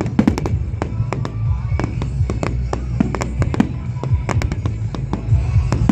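Fireworks display: many sharp cracks and pops going off in rapid succession over a deep rumble of bursting shells.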